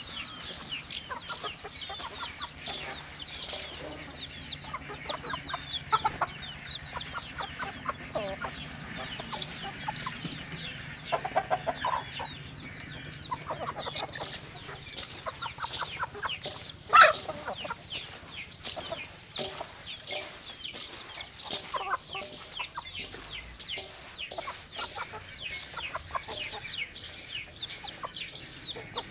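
A flock of chickens clucking, with many short, high peeps falling in pitch throughout. There is one loud, sharp sound about 17 seconds in.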